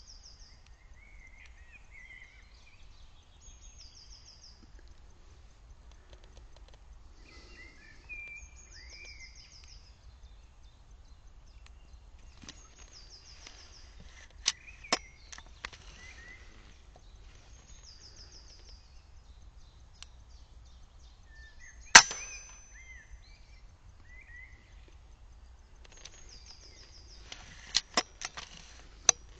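Songbirds singing, broken by sharp cracks of an air rifle shooting: two about halfway, the loudest single crack about three-quarters in, and a quick run of several near the end.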